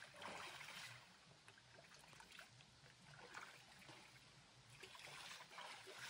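Faint trickling and lapping of water around two people standing and wading waist-deep in a shallow spring pool, with scattered small splashes.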